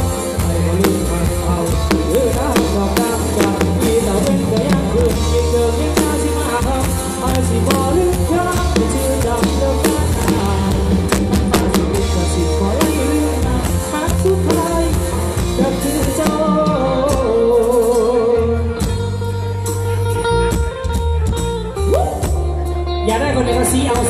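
Live band music through a large outdoor PA sound system, recorded on a mobile phone: heavy bass, drum kit, electric guitar and singing.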